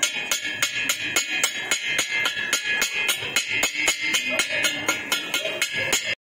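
A chipping hammer knocks the slag off a fresh stick-weld bead on a mild steel tube end. The strikes come fast and even, about five a second, and the steel rings between blows. They stop suddenly near the end.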